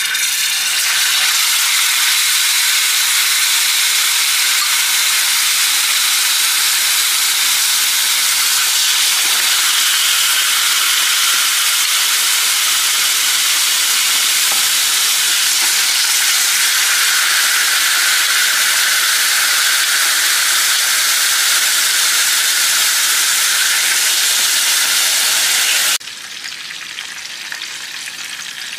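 Tamarind-marinated scad (ikan selayang) shallow-frying in hot oil, a loud, steady sizzle. Near the end it drops suddenly to a quieter sizzle.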